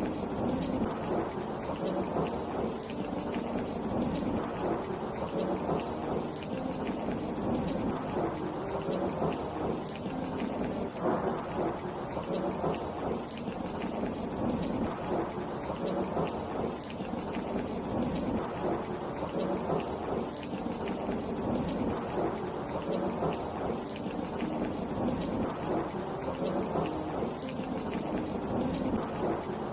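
Steady rain falling, a dense, even patter of drops that keeps up without a break.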